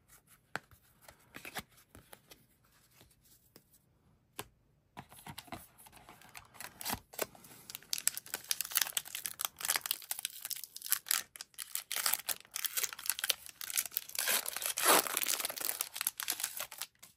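Trading card pack wrapper being torn open and crinkled: a dense crackling that starts about five seconds in and is loudest near the end. Before that, only a few light clicks.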